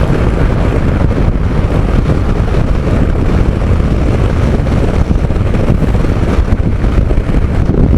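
Steady wind rush on the microphone of a motorcycle riding at speed, with engine and road noise underneath.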